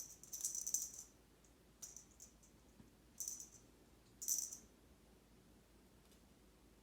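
Kittens at play making short bursts of light, high rattling and clicking, four or five of them over the first five seconds.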